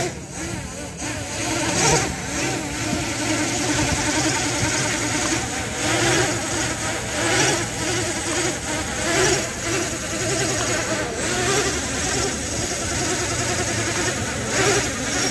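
Quadcopter drone's Emax ECO 2306 1900 kV brushless motors spinning 3-blade propellers in a hover, a steady buzzing whine whose pitch keeps wavering up and down. The owner takes the uneven running for the SJRC F11 flight controller failing to cope with the motors' excessive current and speed, so the drone flies jerkily.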